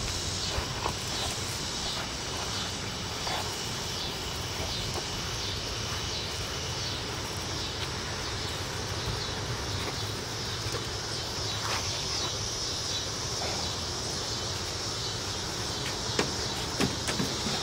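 Steady outdoor background with a high, even insect chorus and a low rumble, broken now and then by soft clicks and taps of footsteps on concrete.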